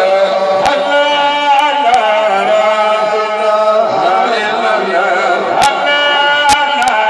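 Men's voices chanting a Sufi devotional song into a microphone, amplified over loudspeakers, with a few sharp clicks through it.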